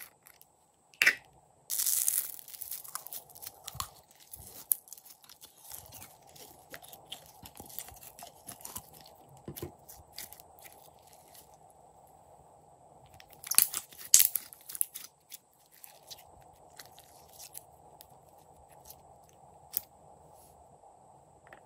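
Yellow slime squeezed from a plastic bottle and worked between the fingers: sticky crackling and popping, loudest in two stretches, one about two seconds in and one around fourteen seconds.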